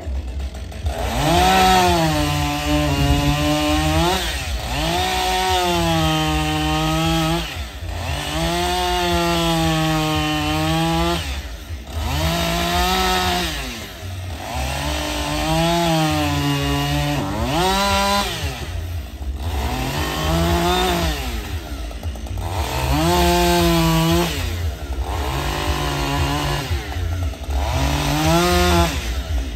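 Chainsaw run in repeated bursts, about ten times: each time the engine rises sharply in pitch, holds for a second or two and drops back toward idle.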